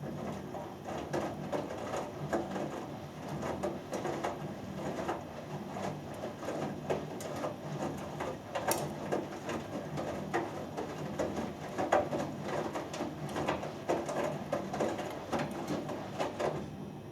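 Hoover Dynamic Next washing machine in its main wash: the drum turns, tumbling wet laundry through the water with irregular sloshing and soft knocks over a steady low hum, and stops near the end.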